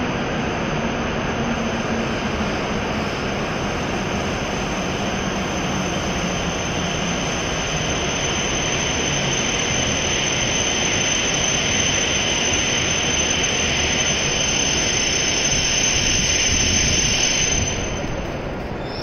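E7-series Shinkansen train slowing into a station platform: a steady rushing noise with a low motor tone that slowly falls in pitch over the first several seconds as it brakes. The level dips briefly near the end.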